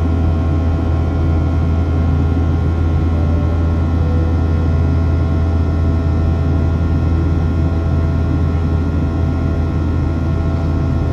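Steady cabin noise of a Boeing 737-700 under way, heard from inside the cabin: its CFM56-7B jet engines and the rush of air, a constant low drone with faint steady tones above it.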